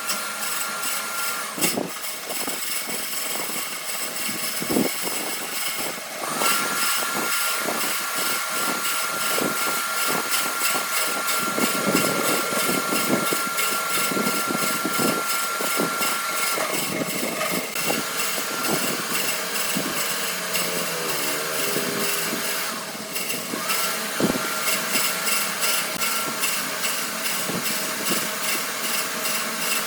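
A power tool running and cutting wood, with a steady high whine that comes in about six seconds in, drops out partway through and returns briefly near the end. Many irregular knocks and scrapes sound throughout.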